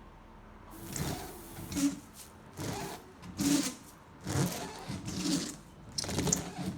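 Car windscreen wiper blade sweeping back and forth over the glass, about eight strokes, each a chattering, squeaking burst: the new blade is skipping and jumping across the windscreen, which the owner later puts down to wrong alignment.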